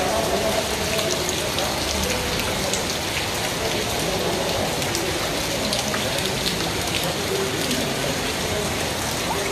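Heavy rain falling steadily: a dense hiss dotted with sharp drop taps.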